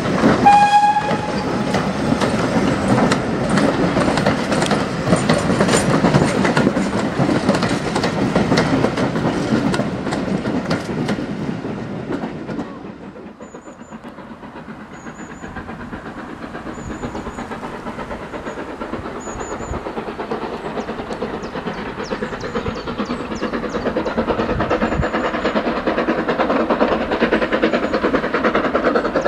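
A steam-hauled rake of passenger coaches rumbles close past, wheels clicking over the rail joints, with a short whistle about half a second in. About twelve seconds in the sound drops away to high bird chirps and the faint, slowly growing sound of LSWR Beattie well tank 2-4-0WT No.30585 approaching from far off.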